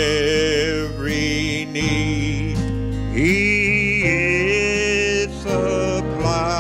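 A gospel song sung with instrumental accompaniment, a man's voice singing into a microphone with vibrato over sustained chords.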